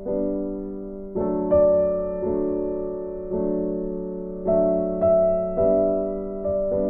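Background music of slow piano chords, struck about once a second and left to ring out and fade.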